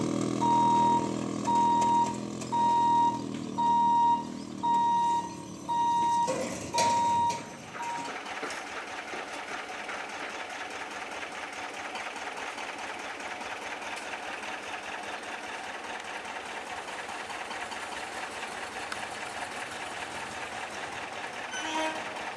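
Level-crossing warning hooter beeping, a steady high tone repeated a little over once a second, over a low steady hum; both stop about eight seconds in, leaving an even hiss.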